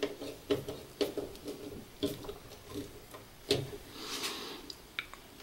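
Light clicks and rustling of a wire being handled and fitted into a stepper motor driver's pluggable screw-terminal block, with a few sharper clicks about half a second, two seconds and three and a half seconds in.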